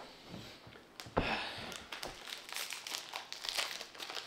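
A person sitting down heavily on a cushioned couch, a soft thump with a rustle about a second in, followed by light, irregular crinkling and rustling as he handles something in his hands.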